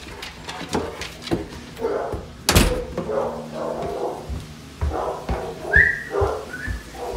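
Pit bulls whining and grumbling in short bouts, with a brief high whine about six seconds in. A single sharp knock comes about two and a half seconds in.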